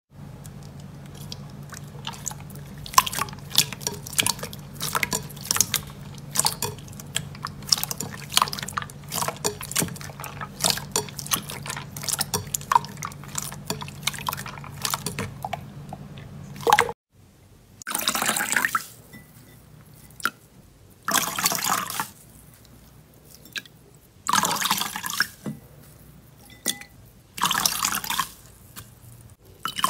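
Hands squeezing and poking translucent slime: a fast run of wet clicks and pops over a low hum. After a break, separate squelches come about every three seconds as another slime is pressed.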